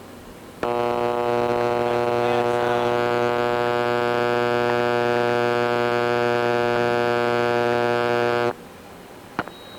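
Solenoid valve heard through an ultrasound detector as a steady, unwavering buzz. It switches on abruptly about half a second in and cuts off abruptly near the end, some eight seconds later.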